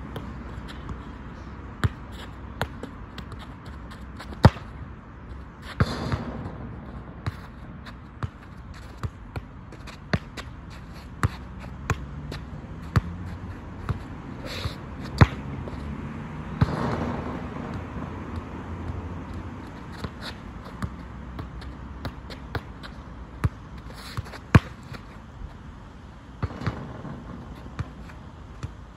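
A football being kicked and bouncing on the court: a long run of sharp thuds, a little under one a second.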